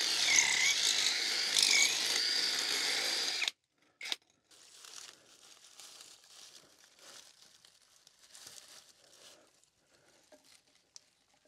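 Cordless hammer drill boring into a masonry foundation wall, running steadily for about three and a half seconds before it stops abruptly. After that come faint handling sounds of PVC conduit fittings being fitted together.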